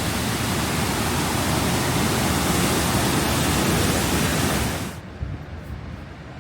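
Waterfall rushing, a loud even roar of falling water that cuts off abruptly near the end, leaving a much quieter low outdoor rumble.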